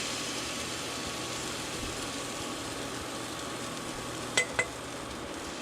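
Food sizzling in a pan on an induction stove, a steady frying hiss, with two quick sharp clinks a fraction of a second apart near the end.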